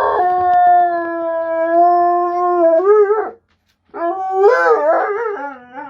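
Dog howling: one long, steady howl of about three seconds that wavers at its end, then after a short pause a second howl that rises and falls in pitch.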